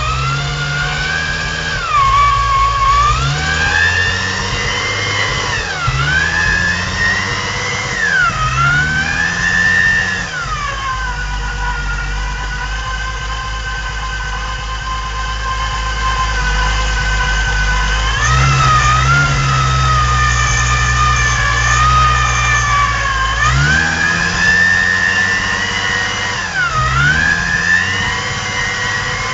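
Supercharged VW VR6 engine running on its first start. The revs repeatedly drop and climb back up, about seven times, with a steadier stretch at lower revs around the middle.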